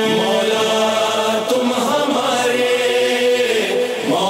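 Voices chanting a Muharram mourning chant (noha) in long, held notes that waver and slide slightly in pitch.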